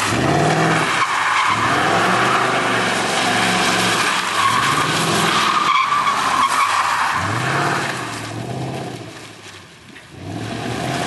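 Ford Mustang V8 drifting in circles, its rear tyres spinning and squealing while the engine revs up and falls back in repeated surges. The sound fades as the car slides away across the lot, then swells again about ten seconds in.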